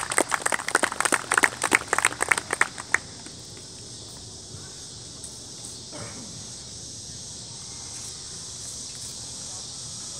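Scattered hand clapping for about three seconds, then it stops, leaving a steady high insect chorus that runs underneath throughout.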